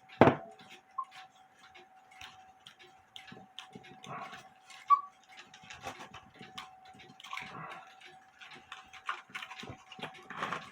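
Irregular small clicks and taps of hands working at a wooden cuckoo clock case and its bellows, with a few louder knocks: one about a third of a second in, one around the middle and one near the end. A faint steady hum runs underneath.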